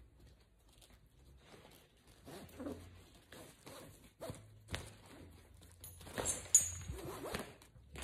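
Nylon webbing strap being pulled through an aluminum tri-glide: a run of short, zipper-like scraping strokes with a few sharp ticks from the buckle hardware, louder near the end.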